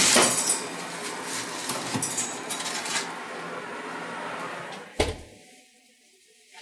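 A wooden peel scraping and rustling over a baking stone as baked bread rolls are lifted off it, then the oven door shutting with a single knock about five seconds in.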